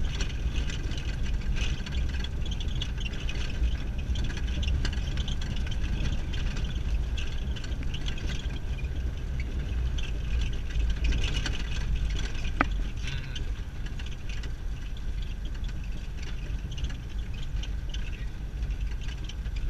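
Car driving on a gravel road, heard from inside the cabin: a steady low rumble of engine and tyres with scattered light rattles and ticks, and one short sharp click about two-thirds of the way through.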